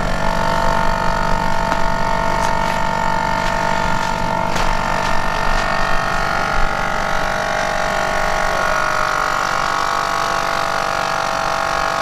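Portable 12-volt tyre-inflator air compressor starting up and running steadily with a motor whine, pumping air into a freshly plugged tyre. The whine drops slightly in pitch about eight or nine seconds in.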